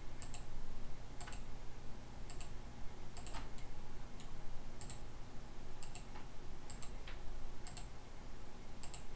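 Computer mouse clicking at an unhurried pace, single sharp clicks about once a second. Each click picks a corner point to place a construction line (XLINE) in AutoCAD. A faint steady hum lies underneath.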